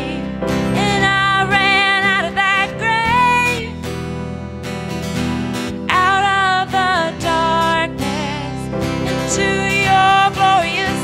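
Worship band performing a song: women singing sustained phrases with short breaks, over strummed acoustic guitar, piano and bass guitar.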